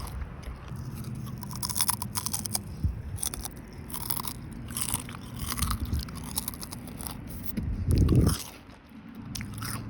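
Crunchy chips being bitten and chewed close to the microphone: a string of crisp crunches. A brief loud low rumble about eight seconds in.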